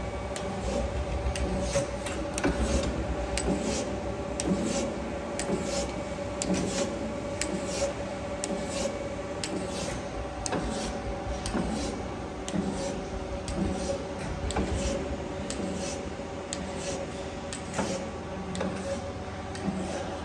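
Freeport SGS-1632AHD surface grinder running its automatic finish-grinding cycle: a steady machine hum with a constant mid-pitched tone, and irregular sharp ticks about one or two a second.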